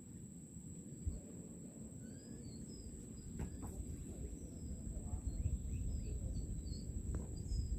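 Quiet evening ambience with a steady high-pitched insect whine, scattered short bird chirps and a low rumbling noise that grows a little louder near the end.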